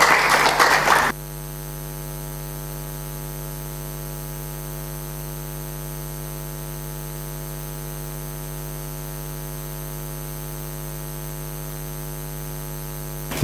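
Steady electrical mains hum: an even buzz with many evenly spaced overtones, carried through the hall's sound system while no microphone is picking up voices. It follows about a second of loud, noisy clatter that cuts off abruptly.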